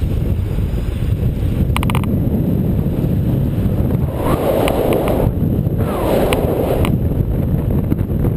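Wind buffeting the microphone of a camera mounted on a moving bicycle, a steady low rumble. A short run of clicks comes about two seconds in, and two brief swells of higher noise come about four and six seconds in.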